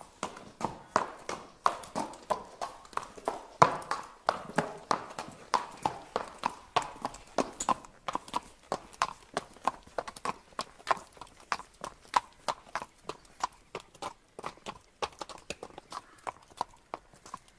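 Horse hooves clip-clopping at a steady trot: an even, hollow clatter of hoof strikes, about three to four a second.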